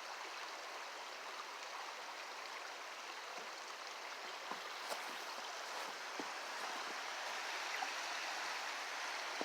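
Fast-flowing river water rushing steadily, with a few faint clicks midway.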